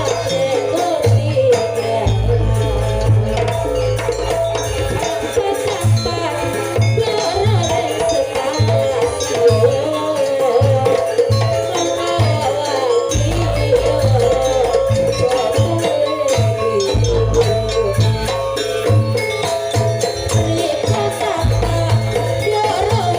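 Janger gamelan ensemble music accompanying a dance: a wavering melody over steady percussion with a rattling shaker-like layer and deep bass beats that come and go.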